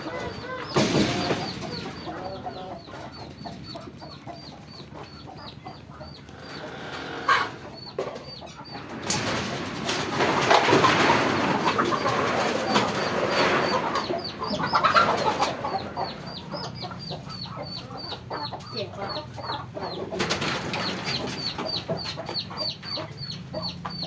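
Chickens clucking, with a run of short, high chirps repeating several times a second. Stretches of loud rustling noise come and go, the longest in the middle.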